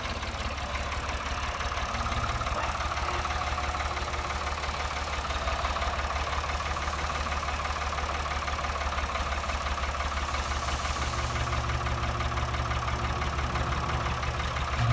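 Farm tractor engine running steadily with an even, low rumble.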